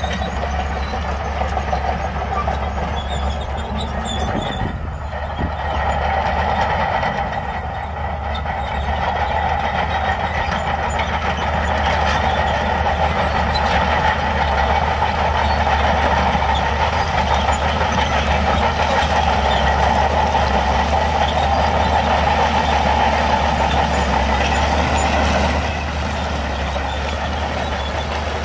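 Shantui DH17C2 crawler bulldozer's diesel engine working under load as it pushes a pile of stone with its blade, a steady heavy engine sound that grows louder through most of the push and eases back near the end.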